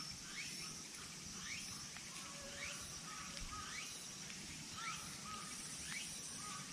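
Outdoor ambience with a repeating animal call, a short note sweeping up in pitch and then holding, about one and a half times a second, over a steady high whine.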